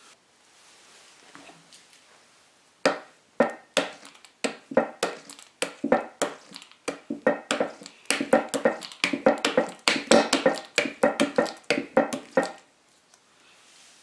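A fast run of sharp squeaks and clicks, roughly two a second, as a red hand tool is rubbed in quick strokes across a honing film on a granite plate. It starts about three seconds in and stops shortly before the end.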